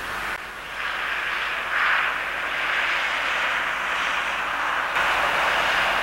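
Distant narrow-gauge steam locomotive working a train, heard as a steady rushing hiss that swells slightly about two seconds in.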